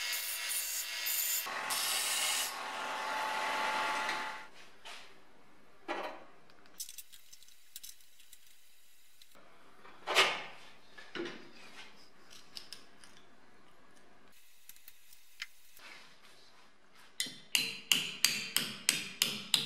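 Bench belt sander running with a small steel patch ground against the belt, its motor spinning down about four seconds in. A few sharp knocks follow. Near the end comes a quick run of ball-peen hammer strikes on the steel patch clamped in a bench vise, about four a second.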